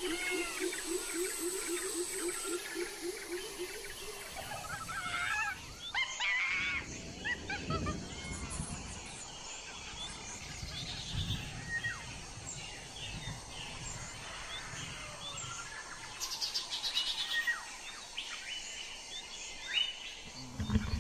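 Wild forest birds chirping and calling, with short high chirps scattered throughout. In the first few seconds a low call pulses about four times a second, then stops about four seconds in. Some low rumbling comes and goes near the middle.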